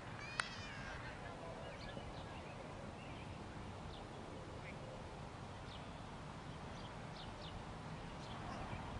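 Open-field ambience: steady background noise with faint, short high chirps scattered through it and a sharp click about half a second in. Right at the end comes a loud sharp crack, a cricket bat striking the ball just after the bowler's delivery.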